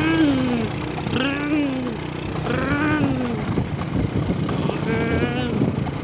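Small motorcycle engine running steadily, under a string of loud short calls, about one a second, each rising then falling in pitch.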